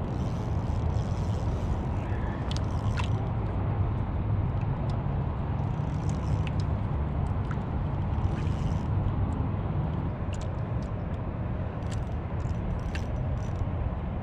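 Steady low outdoor rumble, with scattered faint clicks and ticks over it.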